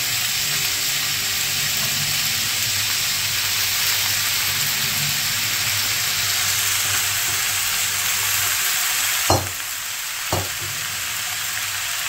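Boiled noodles and vegetables sizzling steadily in a hot wok as they are stir-fried, with two sharp knocks a second apart near the end.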